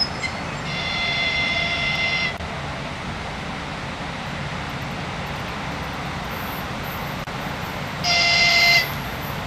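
EP2K electric locomotive sounding its horn twice as it approaches: a long, high-pitched blast about a second in and a shorter, louder one near the end, over a steady low rumble.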